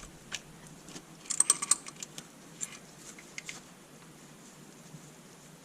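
Adjustable wrench clinking and clicking on a new oil pressure switch being tightened: a quick run of light metallic clicks about a second and a half in, with scattered single clicks before and after.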